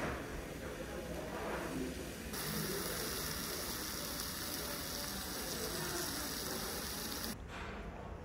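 Meat and mushrooms on a leaf sizzling in a shallow metal pan, a steady hiss that cuts in a couple of seconds in and cuts off near the end, over a low background murmur.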